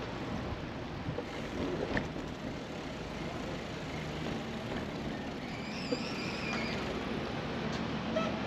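Steady street ambience heard while riding a bicycle along a city street: the low hum of passing car traffic mixed with the bike's own rolling noise, with a few light clicks and a faint high squeal about six seconds in.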